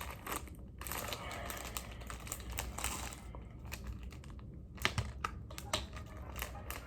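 Crinkling and rustling of a One Chip Challenge snack packet being handled, in a run of irregular crackles and clicks.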